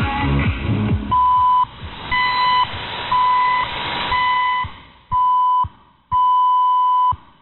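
Time signal pips from Radio Jeddah on shortwave, heard through an AM receiver: the last of a piece of music ends about a second in, then six pips about a second apart at the same high pitch, five short and the sixth long, marking the top of the hour. Faint shortwave hiss runs underneath.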